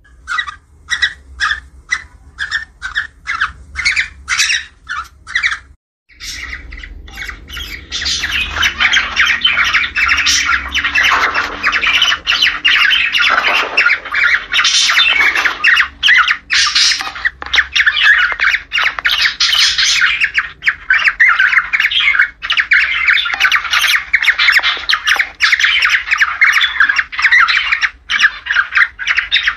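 Cockatiel mating calls, played as a breeding-stimulation recording. For about six seconds come short calls repeated about twice a second, then after a brief break, dense continuous chattering and squawking.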